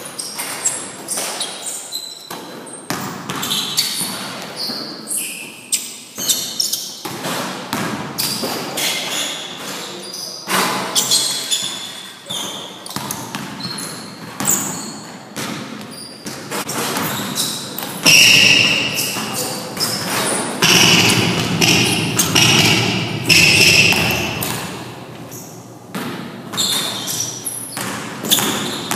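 A basketball dribbled hard on a gym floor, a quick run of bounces, with sneakers squeaking in short high bursts during the middle part and the thud of shots at the basket.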